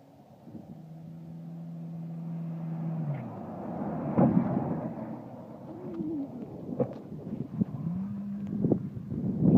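A car engine held at steady high revs as the car slides toward and past on a snowy road, with a loud rush of tyre and snow noise as it passes about four seconds in. After that the engine revs up and down in short bursts as the car moves off.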